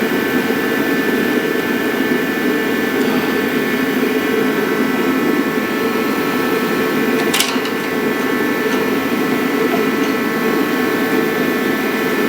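Steady mechanical drone with a constant high whine from a running machine, unchanging throughout, with one sharp metallic click about seven seconds in.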